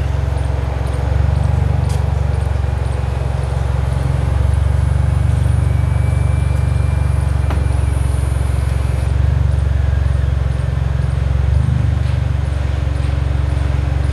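Mini Cooper Convertible idling with its aftermarket sports exhaust, a steady low drone, while its electric soft top closes; a thin high whine from the roof mechanism comes in for a few seconds around the middle.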